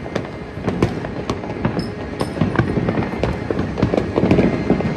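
Many fireworks going off at once: an irregular run of sharp bangs and pops, a few a second, over a constant din of more distant explosions.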